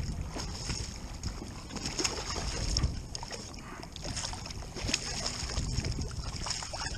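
Water splashing and sloshing close against a kayak, with scattered short splashes over a low rumble of wind on the microphone.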